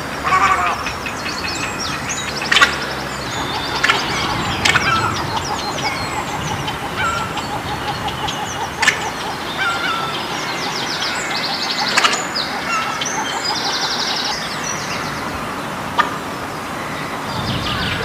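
Egrets calling in a colony: many overlapping calls with quick high trills and short chirps, a run of rapid repeated notes through the middle, and sharp clicks every few seconds.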